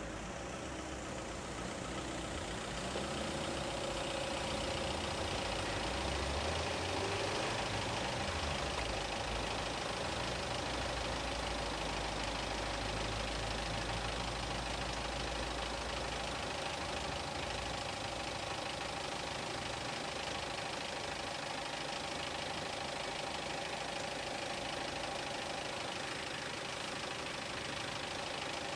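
An engine running steadily at idle, with a constant hum and a deeper rumble through the first half.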